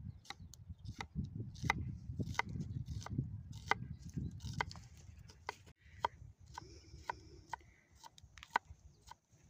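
Knife chopping on a cutting board: sharp taps at a fairly even pace, about one every two-thirds of a second, over a low rumble that fades about halfway through.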